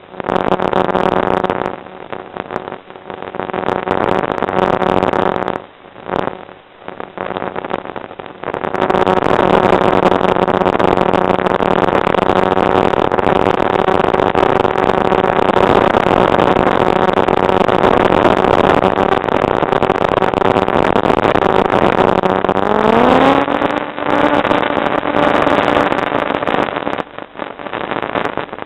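Motor and propeller of an FPV model aircraft droning steadily under a heavy hiss. The sound breaks up several times in the first few seconds. About 23 seconds in, the pitch glides up and holds higher, as the throttle is opened.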